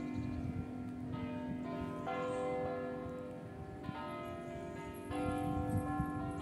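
Large church bells, a 1964 Picasso-foundry ring, swung full circle in a 'distesa' peal: several bells strike in an uneven, overlapping sequence, each stroke ringing on under the next.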